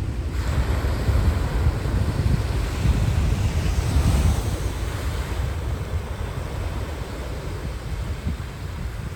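Sea waves breaking and washing up the sand, a hissing surge that swells after about half a second, peaks around four seconds in, then eases. Wind buffets the microphone as a steady low rumble.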